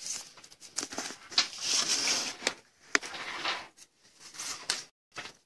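Plastic rustling and sliding as a trading card is slipped into a soft plastic sleeve and then into a rigid clear plastic card holder, with a few sharp light clicks and taps of the plastic.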